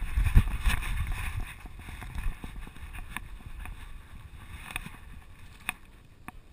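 Low rumbling and rubbing from a GoPro camera mounted on a moving dog's back, louder over the first second and a half, then quieter with a few sharp clicks.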